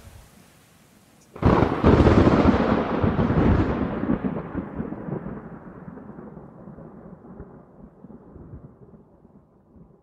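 Thunderclap sound effect: a sudden loud crack about a second and a half in, then a long rumble that slowly fades away.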